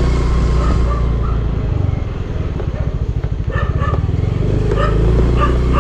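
Vehicle engine running at low speed: a steady low rumble that loosens into a faster, pulsing throb for a second or so around the middle.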